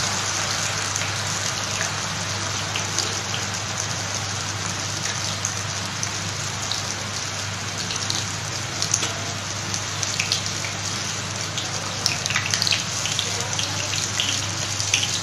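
Skewered chicken pieces deep-frying in a pan of hot oil: a steady bubbling sizzle with scattered crackles and pops, over a steady low hum.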